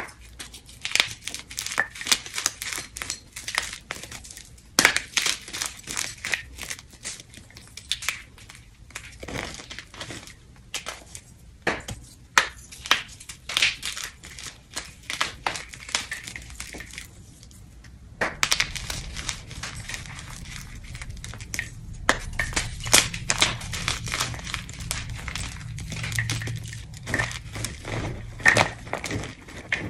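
Blocks of gym chalk crushed and crumbled by a gloved hand into a bowl of chalk chunks: dense, irregular crunching and crackling with a few short pauses. From just past the middle a low hum runs underneath.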